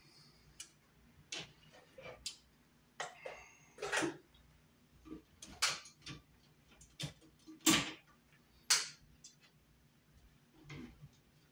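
Irregular sharp clicks and small scrapes of hand tools and wires being worked at a metal ceiling electrical box, with the two loudest clicks close together a little past the middle.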